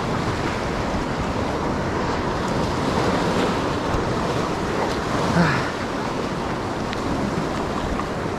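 Sea surf washing steadily against the concrete tetrapods of a breakwater.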